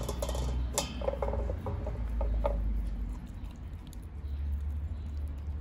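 A husky chewing raw chicken backs, with scattered clicks and small crunches, over a steady low rumble.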